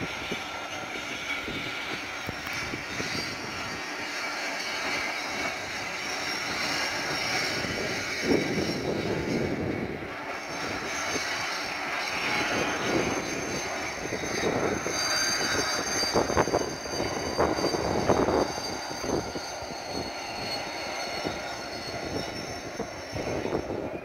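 Two coupled diesel locomotives running light, their engines giving a steady drone with an uneven rumble over it.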